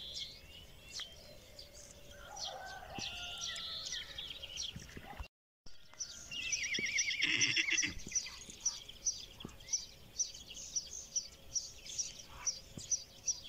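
Birds chirping, with a loud farm-animal call with a wavering pitch about seven seconds in. After it, one bird chirps steadily about three times a second.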